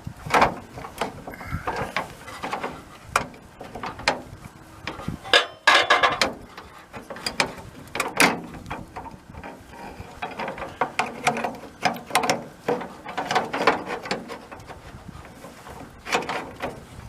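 Rear cargo door latch mechanism and rods of a split-window VW bus being worked into place by hand: irregular metal clicks, knocks and scraping.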